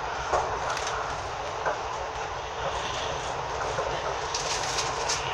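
Running noise of an electric commuter train heard from inside the carriage: a steady rumble and hiss of wheels on rail, with a couple of sharp clicks in the first two seconds.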